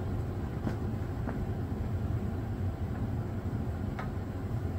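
Steady low machinery hum with a few faint light clicks, one of them about four seconds in.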